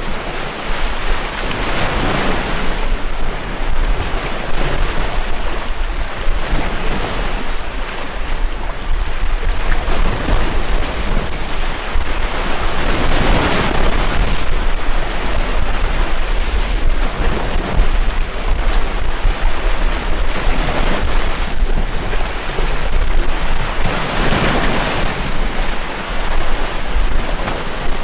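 Sea waves breaking and washing over a rocky stone shore, the surf rising and falling in surges, with a steady low rumble of wind on the microphone.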